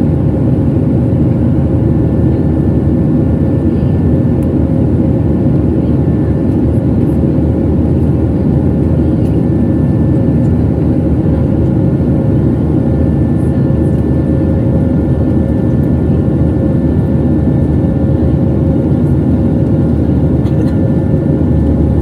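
Steady cabin roar of a Boeing 737-700 in flight, heard inside the cabin over the wing: engine and airflow noise with a constant hum running through it.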